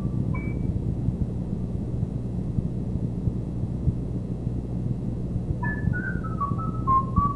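Solo recorder finishing a quick descending run, with one short high note just after. Then comes a pause of about five seconds holding only a steady low hum and hiss. The recorder comes back in near the end with another fast run of notes stepping downward.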